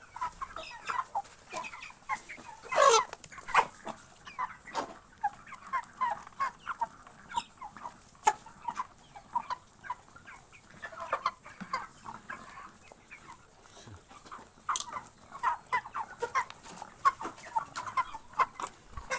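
A flock of chickens clucking in many short, overlapping calls, with one louder call sliding down in pitch about three seconds in.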